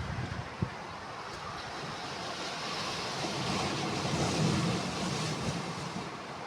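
Sea waves washing onto the shore, a steady rush that swells to a peak about halfway through and then eases.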